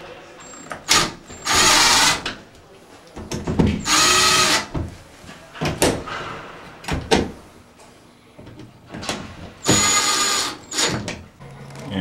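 Power drill driving screws to mount a patch panel, its motor whining in three bursts of about a second each, with short clicks and knocks between the bursts.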